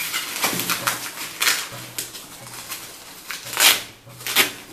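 Hands rustling and smoothing a nylon-covered playpen mattress as it is folded around the collapsed playpen: a run of scraping, swishing fabric sounds with two louder swishes near the end.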